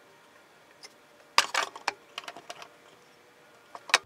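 Handling noise: a quick burst of clicks and knocks about a second and a half in, a few lighter ticks after it, and one sharp click near the end. The saw motor is not running.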